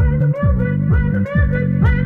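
Electronic dance music without vocals: a repeating synth bass pattern with quick falling sweeps under a pitched synth line.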